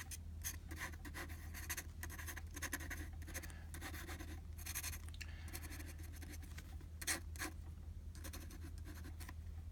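Gold-nibbed dip pen (a Frankenpen) scratching across paper in many short, irregular strokes as a drawing is sketched, over a steady low hum.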